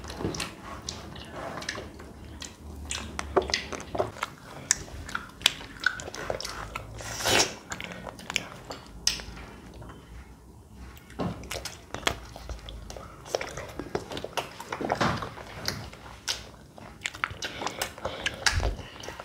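Close mouth sounds of eating Magnum chocolate-coated ice cream bars: licking and biting into the bars, heard as a string of irregular wet smacks and clicks, with a louder one about seven seconds in.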